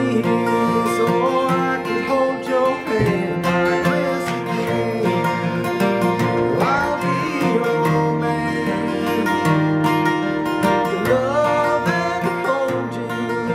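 A man singing while he plays a steel-string acoustic guitar.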